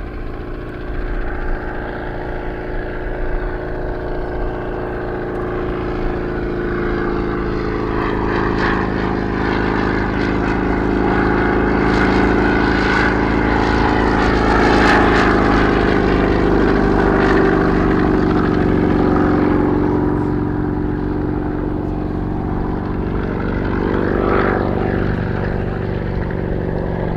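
Bristol 171 Sycamore helicopter in flight, its radial piston engine and rotor running steadily. The sound grows louder toward the middle, then eases off a little.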